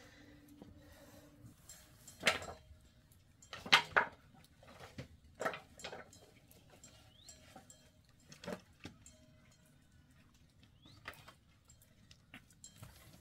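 Scattered sharp knocks and clatters of hard objects being handled, the loudest a little after two seconds in and a double knock around four seconds in, with a few softer ones later.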